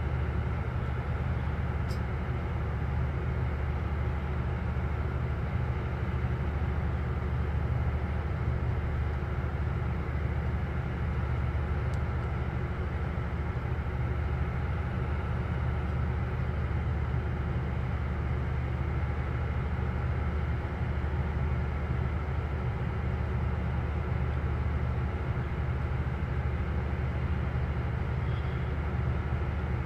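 Steady low drone of large diesel engines aboard a ferry under way, an even rumble that does not change, with a hiss of wind and water over it.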